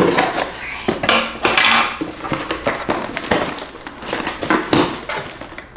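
Packaging being handled and opened: an irregular run of crinkling, crackling and rustling.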